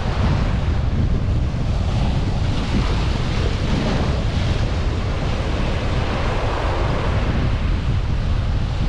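Wind buffeting the microphone, a heavy steady rumble, over the continuous wash of sea surf breaking on shore rocks.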